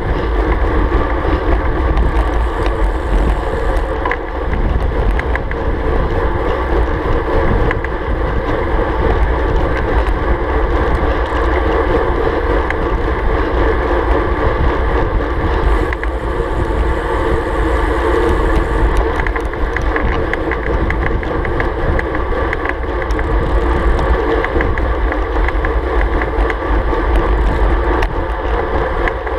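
Steady wind rush and rumble on a GoPro's microphone while riding a road bike at about 38–40 km/h.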